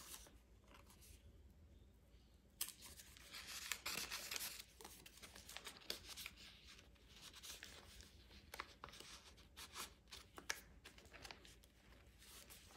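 Faint rustling and scraping of paper and card as a tag is slid out of and back into a paper pocket on a journal page, with a few light taps, starting a couple of seconds in.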